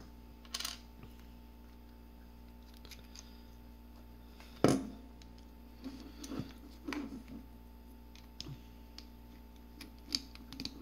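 Scattered small plastic clicks and knocks as wired connector plugs are handled and pressed onto the coils of a pneumatic solenoid valve, with one sharp knock about halfway through.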